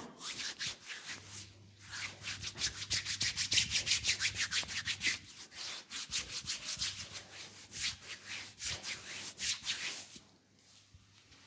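Brisk rubbing strokes on a leg during a massage: a fast run of scratchy strokes, about five a second, then slower, uneven strokes that stop near the end.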